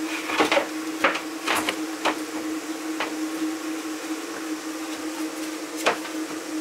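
Luxury vinyl planks being pressed and tapped into place by hand: several sharp knocks and clicks in the first three seconds and one more near the end, over a steady hum.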